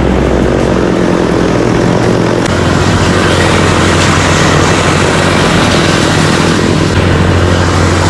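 Chainsaw engine running steadily and loudly, its pitch stepping up about two and a half seconds in.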